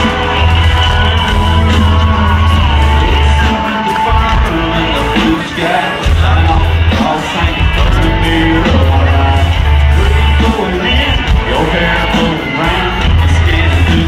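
Live country-rock band playing loud, with a heavy pulsing bass and some singing, and shouts from the crowd.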